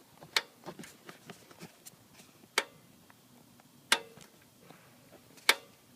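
Sharp clicks from a Ford Focus ST-2 with the engine switched off: four loud clicks a second or more apart, with fainter ticks in between. The owner wonders whether it is just the exhaust manifold ticking from the heat.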